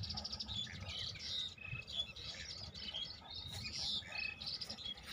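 Several birds chirping and trilling together, with many short overlapping calls, over a low rumble.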